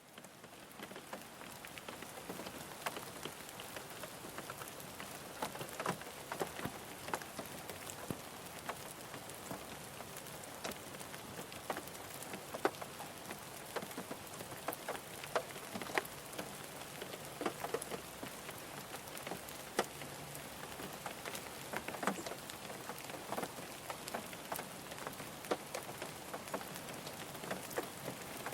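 Steady rain falling on a car's roof and windows, heard from inside the car: a constant hiss with many sharp individual drop taps scattered through it. It fades in over the first second.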